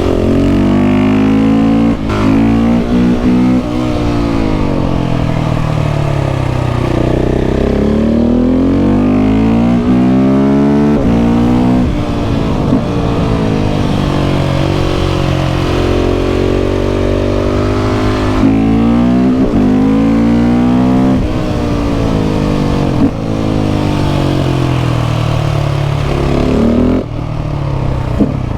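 KTM 690 SMC R's single-cylinder engine through a Leo Vince exhaust, revving up and falling back over and over as the bike is ridden hard, with short breaks in the note between the rising sweeps.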